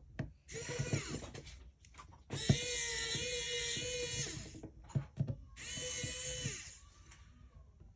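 Small electric screwdriver motor whirring in three bursts, a short one, a longer one of about two seconds and a third of about a second, as it backs out the screws of a hair clipper's motor cover. Light clicks and taps come between the bursts.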